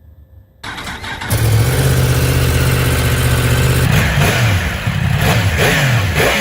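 2021 Yamaha R1's inline-four engine, breathing through an SC-Project exhaust, fires up about half a second in and settles into a steady idle. From about four seconds in come several quick throttle blips, the revs dropping back after each one.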